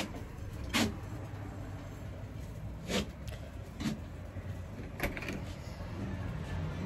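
A handful of short, sharp knocks and clicks, spaced irregularly, over a low steady rumble.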